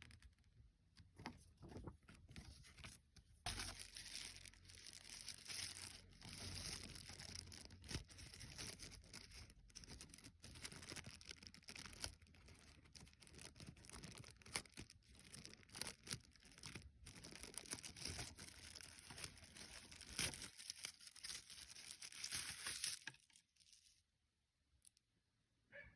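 Packaging being handled: crinkling and tearing of wrapping with small clicks and knocks, starting about three seconds in and stopping about three seconds before the end.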